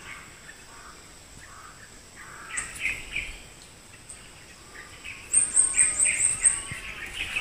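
Birds chirping: a few calls about two and a half seconds in, then a quick run of high repeated notes and more chirps from about five seconds on, over a faint steady high-pitched tone.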